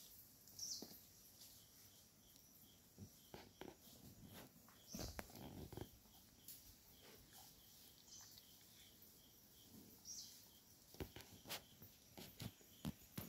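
Faint forest ambience: scattered crackles and rustles in the undergrowth, a denser patch of low rustling about five seconds in, and short high bird chirps now and then over a faint, even insect pulse.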